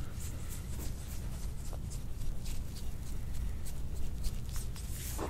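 Metal soft-tissue scraping tool drawn over the bare skin of the upper back in short, quick strokes: a soft, irregular scratching, several strokes a second.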